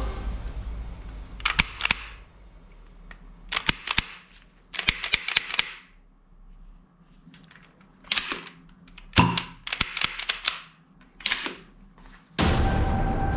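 Plastic toy guns being handled and worked: short bursts of sharp clicks and rattles from their mechanisms, with a louder knock about nine seconds in.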